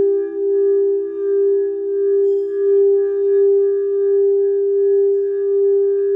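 Singing bowl sustaining a steady, loud tone with fainter overtones above it, its level wavering in a slow pulse about once a second.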